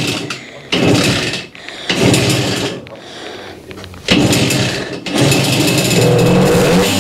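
Simson S50N moped's 50 cc two-stroke single-cylinder engine being kick-started with a freshly reassembled carburettor: three short bursts as it is kicked over, then it catches about five seconds in and keeps running.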